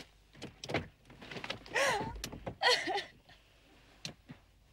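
Clicks and light knocks from inside a car, with two short wavering pitched sounds about two and three seconds in.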